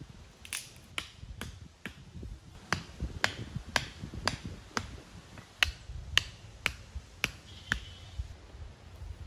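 Hammer driving wooden layout stakes into the ground: a steady run of sharp knocks, about two a second, with a short break about two seconds in and another about five seconds in.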